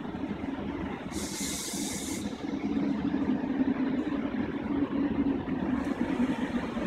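Siemens Class 700 electric train standing at the platform, its onboard equipment humming steadily. A short hiss of compressed air from its pneumatics comes about a second in, lasting about a second, and a fainter one follows near the end.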